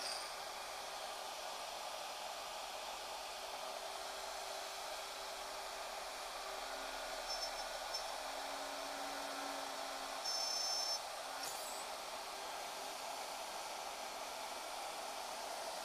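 Shaper Origin handheld CNC router running steadily as it cuts, a constant whir and hiss with its dust extraction, and a short high-pitched sound about ten seconds in.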